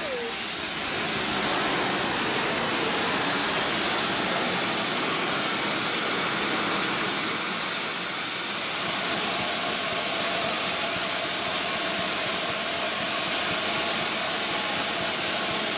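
USATC S160 2-8-0 steam locomotive blowing off steam at its safety valves while standing: a steady, unbroken hiss, the sign of the boiler at full working pressure.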